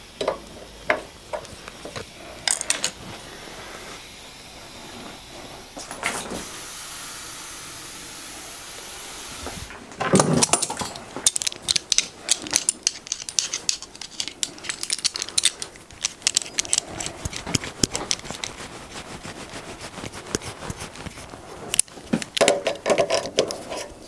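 Metal hand tools clinking and clattering on a workpiece: an adjustable spanner is taken off a tap and locking pliers are clamped onto it, with dense irregular clinks from about ten seconds in. About six seconds in there is a steady hiss lasting about four seconds.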